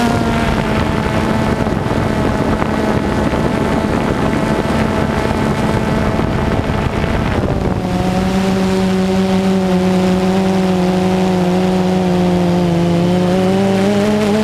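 DJI Phantom 2 quadcopter's motors and propellers whining steadily, heard from the camera mounted on the drone, with some wind noise. The pitch changes about seven and a half seconds in, then dips and rises again near the end as the drone adjusts its flight.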